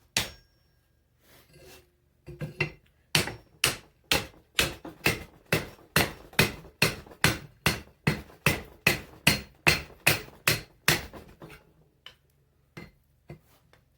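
Hammer blows on hot mild steel at the anvil, a steady run of about two ringing strikes a second, as the stock is bent over to fold the eye of an axe.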